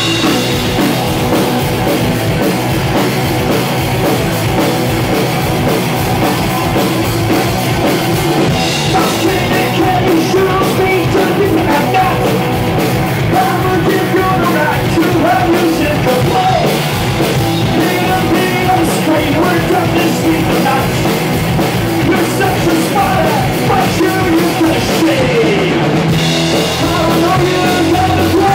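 A live rock band playing loudly: electric guitars, bass and drum kit, with a man singing into a microphone.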